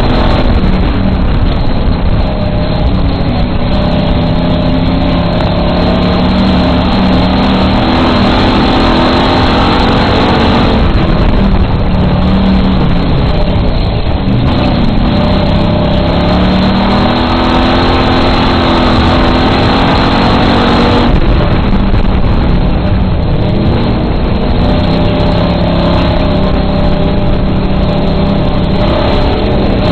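Dirt-track race car's engine heard from inside the cockpit, running hard and loud. Its pitch climbs and falls in long sweeps as the throttle is opened down the straights and lifted for the turns, dipping noticeably about a third of the way in and again about two-thirds through.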